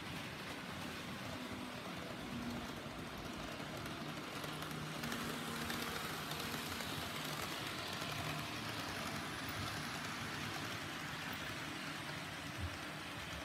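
HO-scale model train running on the layout's track, a steady rolling hum of motor and wheels that grows louder midway as the train passes close. A single short click near the end.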